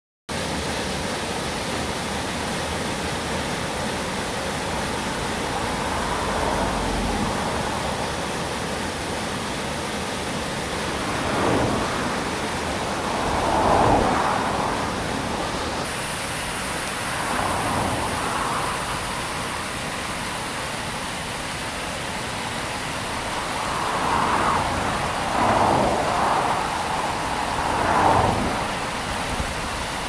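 Water pouring over a small river weir and churning white at its foot: a steady rushing noise that swells louder now and then.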